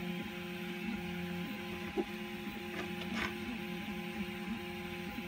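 Small hobby servo motors driven from a servo tester while their centre position is set, buzzing with a steady whine that breaks off briefly about every half second. A faint click comes about two seconds in.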